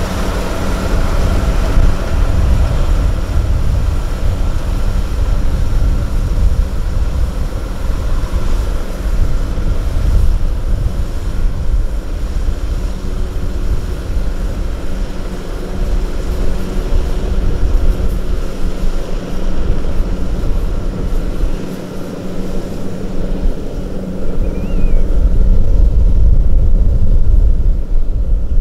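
Diesel engine of farm machinery running steadily under load, with a brief dip about three-quarters of the way through and louder running near the end.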